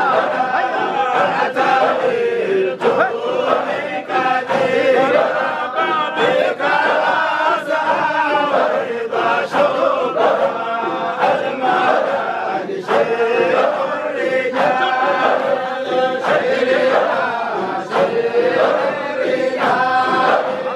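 A large crowd of men chanting together in unison, a dhikr: one short melodic phrase repeated over and over, with scattered sharp knocks running through it.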